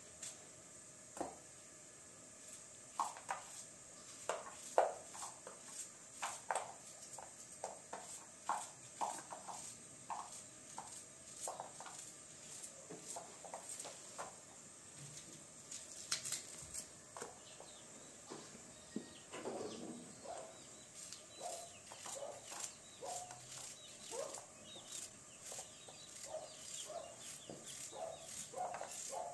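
Knife cutting through an onion held in the hand, many short crisp cuts with pieces dropping into a metal pan, while poultry clucks in the background.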